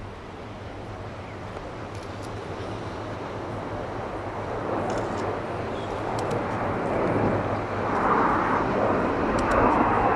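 Jet noise from BAE Hawk T1 trainers flying in formation, heard from the ground, growing steadily louder as the jets approach.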